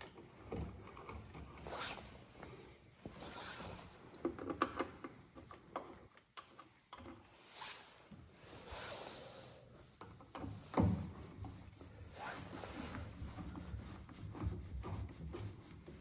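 T20 Torx screwdriver turning the tail light's two screws back in by hand: irregular scraping and rubbing turns with scattered clicks, and one sharper knock about eleven seconds in.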